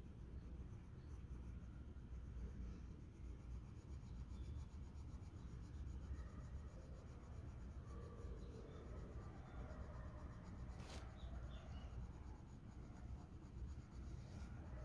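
Red coloured pencil shading on paper: a faint, steady scratching of the pencil lead rubbing over the page, with one sharp click about three quarters of the way through.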